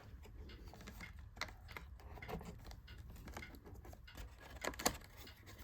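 Faint, scattered light clicks and taps of small screws, tools and parts being handled inside an opened iMac, with a sharper click just before the end.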